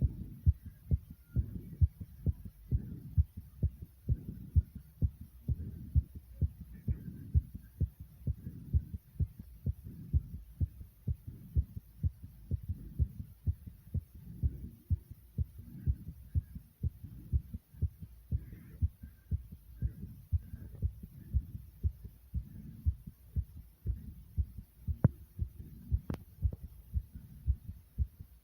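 Human heartbeat racing after exercise: a fast, regular run of low thumps. Two sharp clicks come near the end.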